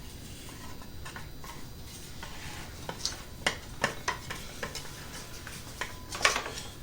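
Light metallic clicks and clinks, a scattered run of short sharp taps from about three seconds in, the loudest near the end: tools and engine parts being handled while a serpentine belt is taken off.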